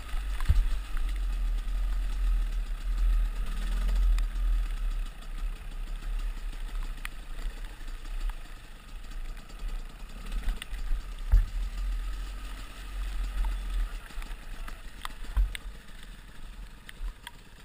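Enduro dirt bike engine running at low revs while riding slowly over rough ground, with a low wind rumble on the helmet camera's microphone. A few sharp knocks come as the bike goes over bumps.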